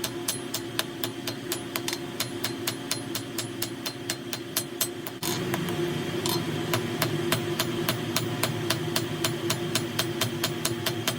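Blacksmith's hammer striking on an anvil in a steady rhythm, about three blows a second, with a ring on each blow. A steady hum runs underneath and gets louder suddenly about five seconds in.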